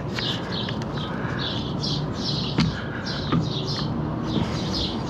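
Small birds chirping in a quick, steady run of short high notes, with a couple of sharp clicks partway through.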